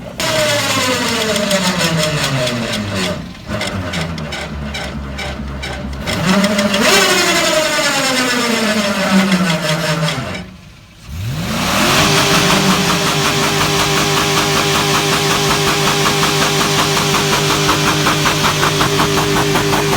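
Chevrolet Silverado's 5.3 Vortec V8, an engine with rod knock, revving up and down, dipping out briefly about halfway through, then climbing quickly and held at a steady high speed with an even pulse.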